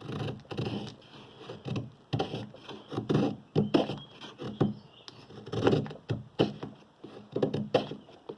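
Knife blade shaving feather sticks from a dry piece of wood: a series of short scraping strokes, about one or two a second, at an uneven pace.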